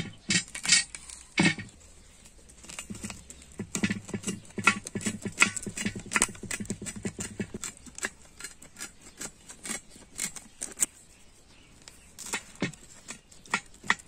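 Steel pizza-cutter blade pressed down through a baked pizza's crisp crust: a run of sharp crunches and clicks, thickest from about four to seven seconds in.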